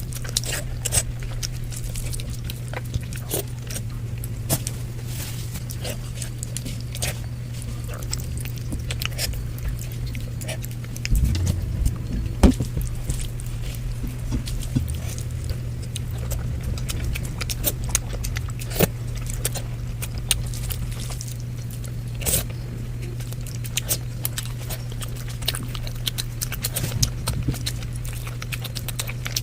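Close-miked chewing and mouth sounds of a person eating curry with rice: scattered wet clicks and smacks over a steady low hum.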